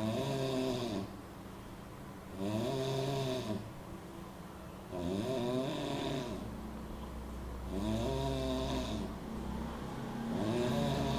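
A person snoring loudly and rhythmically: five snores, each about a second long, coming about every two and a half seconds, each with a tone that rises and then falls.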